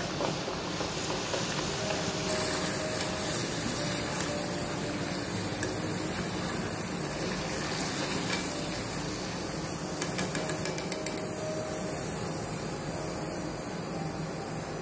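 Potato fries sizzling as they deep-fry in hot oil in a kadhai, stirred and lifted with a wire-mesh skimmer. About ten seconds in comes a quick run of about five light metal taps from the skimmer against the pan.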